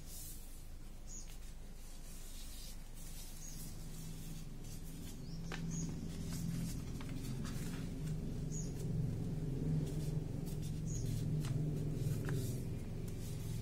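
Paper rustling and crinkling as a sheet of origami paper is folded and pressed flat by hand, with a few short, faint clicks. Soft background music with sustained low tones comes in a few seconds in and grows louder toward the end.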